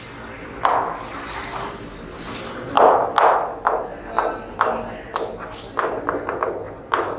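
Chalk writing on a blackboard: a quick run of sharp taps and short scraping strokes as letters and a line are written.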